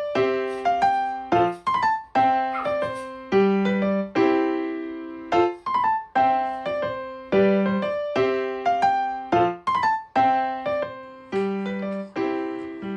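Background music: a light piano melody of struck notes, each fading after it is played, in repeating phrases.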